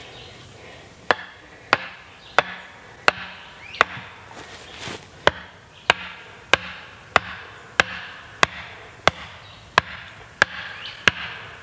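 An axe chopping short lengths of wood into pegs, with steady, evenly spaced strikes about one and a half a second that begin about a second in.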